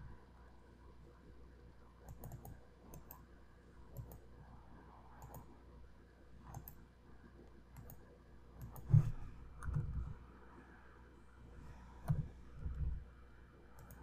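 Faint clicking of a computer mouse and keyboard, with a few louder, duller knocks in the second half.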